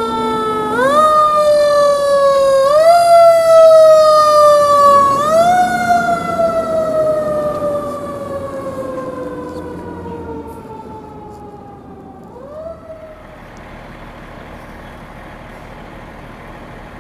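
Fire ladder truck's mechanical siren wound up three times in quick succession. Each rise is sharp and followed by a long, slow wind-down, and the siren is loudest around the third. A short last wind-up comes near the end of the siren, then only a steady, even hiss remains.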